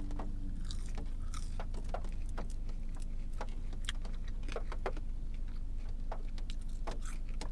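Chewing a mouthful of French fries with fry sauce: soft, irregular mouth clicks over a steady low hum.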